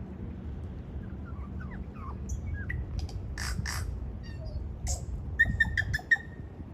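Tui singing a varied phrase: faint rising whistled glides, a couple of harsh wheezy notes, falling whistles, then a quick run of sharp clicking notes near the end. A steady low rumble of wind sits underneath.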